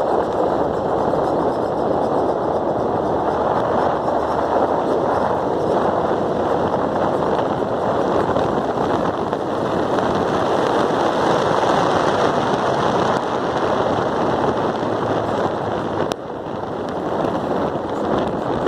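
Acura RSX suspension chirping rapidly and without let-up while driving, with road noise beneath; it eases a little near the end. The cause is untraced: new coilovers did not cure it, and worn tie rod ends with torn boots, a ball joint or a wheel bearing are the suspects.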